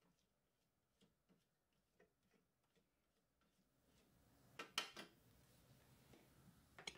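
Near silence, with faint ticking and scraping of the Thermomix spatula against the mixing bowl as chopped onion is pushed down the sides, about three or four small ticks a second, then a few sharper clicks about five seconds in and at the end.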